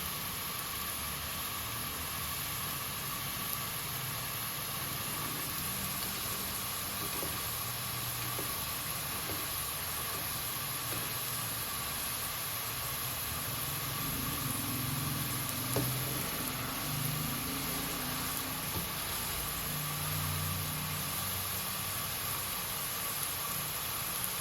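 Steady hiss of a kadhai of sugar syrup simmering on the stove, with rasgulla (chenna balls) cooking in it.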